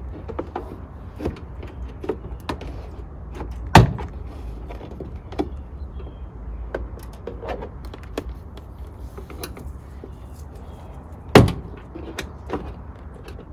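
Plastic car door trim panel being pried off with a screwdriver: scattered small clicks and scrapes, with two sharp loud snaps about four and eleven seconds in as its retaining clips pop free.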